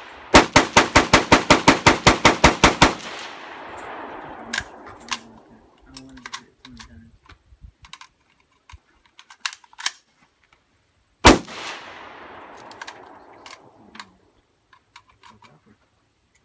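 Rifle fire: a fast string of about fifteen shots in under three seconds, each echoing, then one more shot about eleven seconds in, with small clicks and knocks in between.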